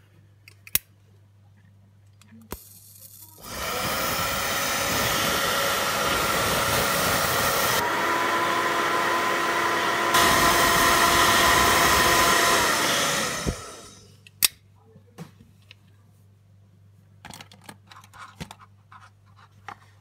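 Zippo rechargeable dual plasma arc lighter insert firing: a loud, steady electric buzz whose tone shifts slightly partway through, cutting out after about ten seconds, the insert's automatic 10-second safety timeout. A sharp click comes before the arc and another just after it.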